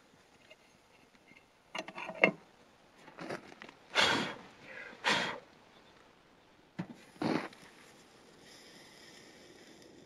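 A handful of short rustling, brushing noises from a person shifting and reaching, clothing and gear being handled, with the two loudest about four and five seconds in.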